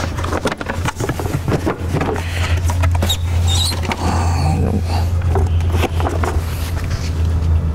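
Plastic clicks, knocks and scraping as a truck's stock plastic airbox is opened and its panel air filter lifted out, over a steady low hum.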